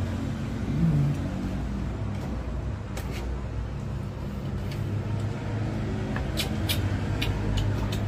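A few light clinks of cutlery on a plate, clustered near the end, over a steady low rumble.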